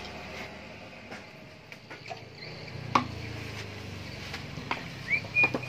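Occasional light clicks and taps of hand tools against the aluminium crankcase of a partly stripped Honda Tiger motorcycle engine. A steady low hum comes in about halfway through, and a short high-pitched tone sounds near the end.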